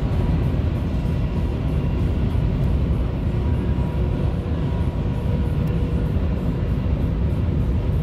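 Steady road and wind noise of a car at highway speed, heard from inside it, as it runs alongside and past a Peterbilt 579 semi-truck, a low unbroken rumble with hiss.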